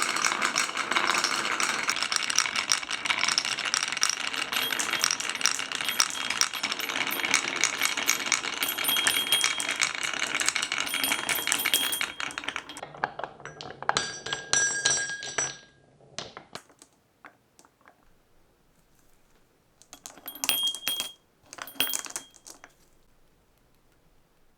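Many glass marbles rolling and clattering down wooden marble-run tracks in a dense, continuous rattle. About halfway through it thins out to sparse clicks. Later come two short bursts of clattering with ringing clinks, and near silence between them.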